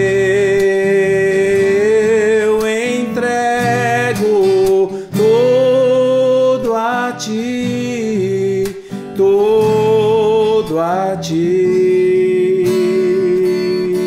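A man singing long held notes with vibrato, gliding from pitch to pitch, over a strummed acoustic guitar: a slow worship song.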